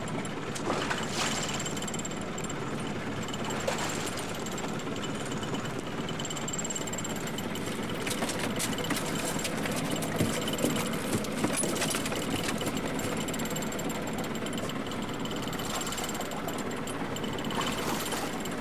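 Fishing boat's engine and deck machinery running steadily, with a faint high-pitched whine and scattered knocks and clatters.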